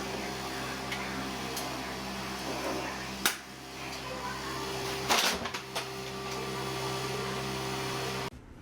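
Steady mechanical hum with a noisy hiss, broken by a sharp click about three seconds in and a louder knock about five seconds in.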